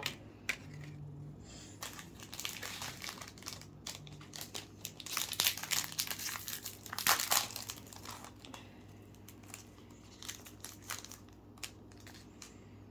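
Plastic foil wrapper of a football trading-card pack crinkling and tearing as it is opened, with the busiest, loudest rustling in the middle stretch.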